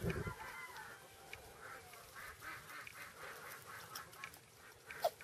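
Black Jersey Giant chickens clucking softly in a pen, with a faint falling call early on and one short louder note near the end.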